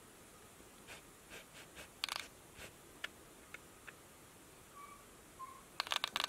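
A cat tapping and scratching at a laptop screen: scattered light taps, then a louder rapid flurry of taps near the end.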